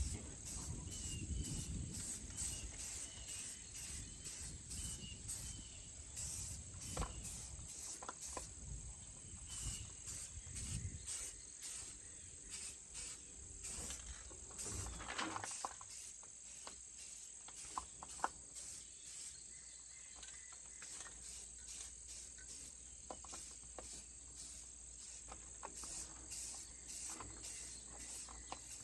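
Insects chirping in an even, rapid high-pitched rhythm, about two to three pulses a second, with scattered clicks and knocks from handling parts.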